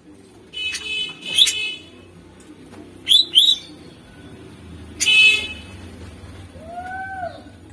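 Green leafbird (cucak ijo) singing in separate loud phrases: a harsh buzzy phrase about a second in, two quick sharp whistled notes near three seconds, another harsh buzzy note near five seconds, and a lower arched note near the end.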